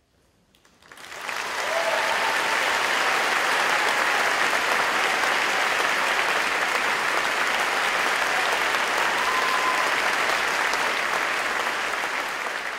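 Audience applause breaks out about a second in and continues steadily.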